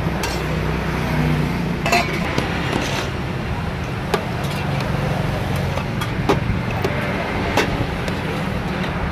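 Steady street and traffic noise with a low rumble, broken by sharp clinks and knocks at irregular moments, about nine in all.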